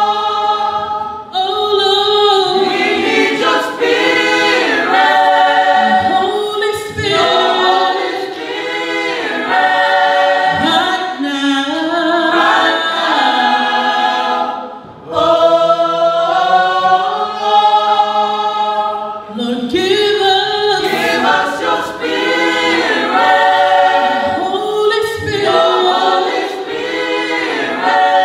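Tongan youth choir of men and women singing together in harmony, with a brief break between phrases about a second in and another midway through.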